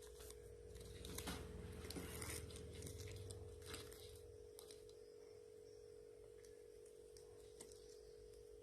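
Faint, near-silent kitchen room tone with a steady electrical hum, plus soft handling clicks and rustles in the first few seconds as the fish is stuffed by hand.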